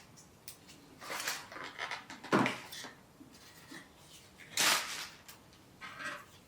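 Plastic handling noises as the mini tripod base is screwed onto the DJI Osmo Mobile 6 gimbal handle: a series of short scrapes and rustles with a knock about two and a half seconds in and a louder scrape near the end.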